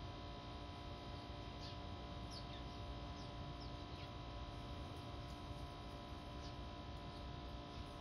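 Small birds giving scattered short, high chirps that drop in pitch, several in quick succession between about one and a half and four seconds in and a few more later, over a steady faint background hum.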